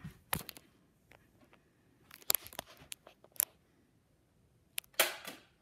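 A handful of scattered sharp clicks and knocks over a quiet room, with a louder knock and a brief rush of noise near the end.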